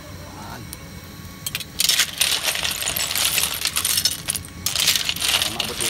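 A pile of sikad-sikad sea snail shells clattering against each other and the metal pan as a ladle stirs them. It starts about two seconds in as a dense rattling clink.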